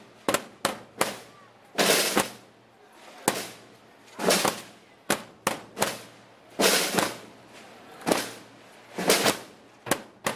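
Snare drum played as a slow processional march beat: short rolls alternating with single sharp strokes, the pattern repeating about every two seconds.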